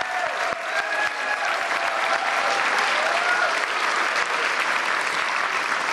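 Studio audience applauding steadily, dense clapping, with a few voices whooping and calling out over it in the first three seconds.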